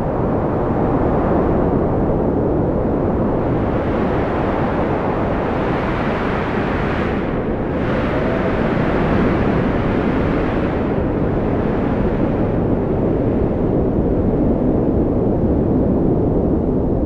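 Strong wind blowing with a steady low rush that swells about halfway through, with a faint wavering whistle.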